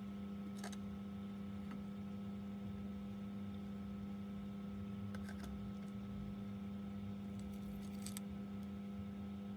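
Steady electrical hum with a low fixed pitch, with a few faint light clicks, clustered about five seconds in and again near the end.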